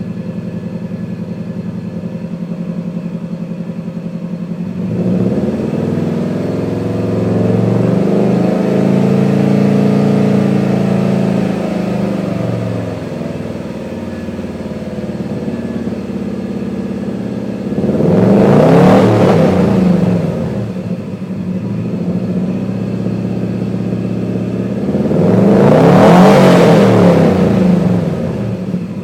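1993 Subaru WRX's turbocharged EJ20 flat-four running through a custom 3-inch exhaust. It idles, then is revved: a slow climb to a held higher rpm about five seconds in that settles back down, then two sharp revs that rise and fall, the second the loudest.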